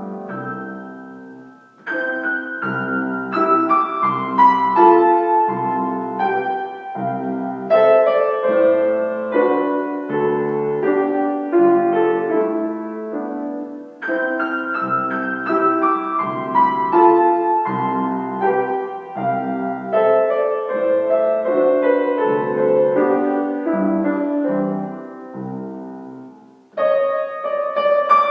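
Solo piano playing a children's classical piece: runs of notes that fall in pitch over steady bass notes. A brief lull comes shortly after the start, the phrase is repeated about halfway through, and after a short pause near the end a louder passage begins.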